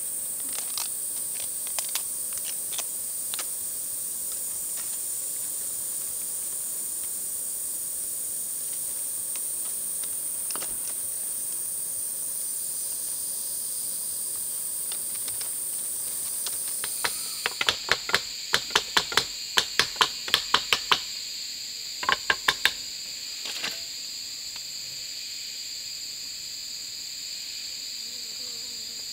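Steady high-pitched chorus of buzzing insects. About two-thirds of the way in comes a quick run of about a dozen sharp knocks at roughly three a second, then four more and a single last one.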